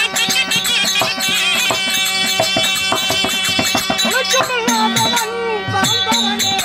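Live Therukoothu folk-theatre music: sustained reed-organ notes under a running rhythm of hand-drum strokes and cymbal or bell strikes, with a wavering melody line above.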